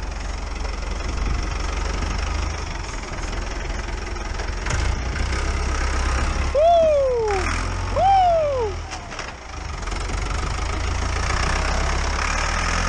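Tractor engine running with a steady low drone. About halfway through come two loud calls about a second and a half apart, each sliding down in pitch and lasting under a second.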